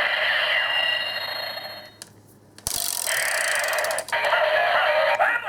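Electronic sound effects played through a Kyoryuger DX toy's small speaker for the Pteragordon Jyudenchi. They stop about two seconds in, and after a click the toy starts playing again.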